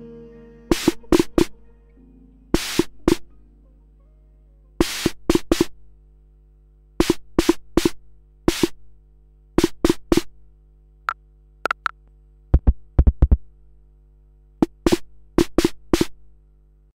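Electronic snare hits from a hand-built CB-55 (DR-55 clone) drum module's snare circuit, fired by hand at irregular moments in quick clusters of two to four. Each is a short, sharp burst of noise over a tuned body. A steady low hum runs beneath, and a few deeper thuds come about two-thirds of the way through.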